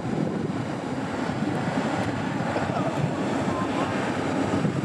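Steady rush of ocean surf, with wind buffeting the microphone.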